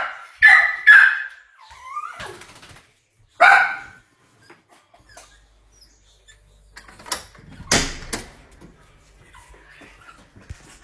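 A dog barking: four short, sharp barks in the first four seconds, then a few knocks and handling noises about seven to eight seconds in.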